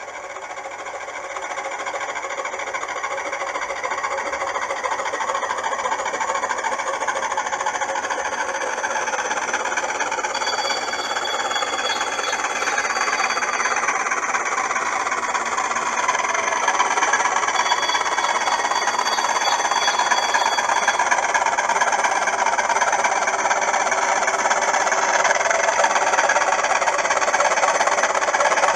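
Model Class 20 diesel locomotive's TTS sound decoder playing a diesel engine running through its small loudspeaker, growing steadily louder as the locomotive approaches. Twice near the middle, a steady high two-note tone sounds for a few seconds.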